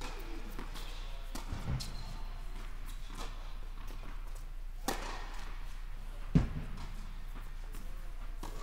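Tennis balls being struck and bouncing in a large indoor tennis hall: a few sharp knocks, the loudest a little over six seconds in, over a steady low hum.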